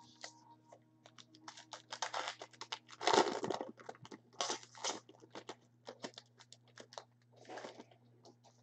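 Foil wrapper of a trading-card pack being torn open and crinkled, with quick rustles and clicks of the cards being handled. The loudest tear comes about three seconds in.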